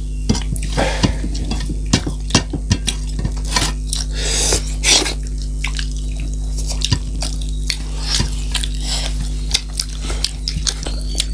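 Plates and utensils clinking and tapping during a meal, in short scattered knocks, over a steady low electrical hum.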